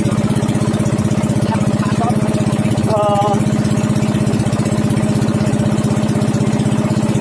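Motor of an outrigger boat (bangka) running steadily underway, a fast, even chugging.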